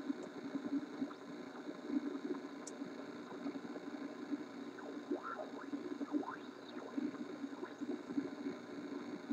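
Philco AM car radio's speaker putting out static and hum as it is tuned across the high end of the AM band, with a few short rising and falling whistles about halfway through as it passes a weak signal.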